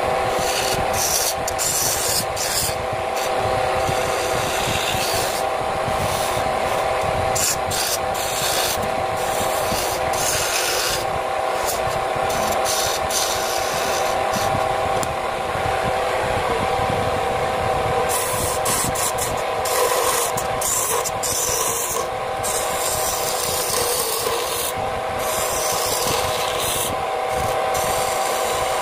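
Wood lathe running with a steady hum while a new, not yet sharpened turning chisel made from a coil spring scrapes the spinning wooden spindle, a rough rasping scrape that comes and goes in uneven strokes.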